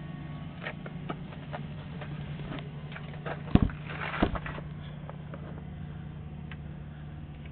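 Sewer inspection camera being pushed along a sewer line, with scattered clicks and knocks over a steady low hum. The loudest are a couple of sharp knocks about three and a half and four seconds in.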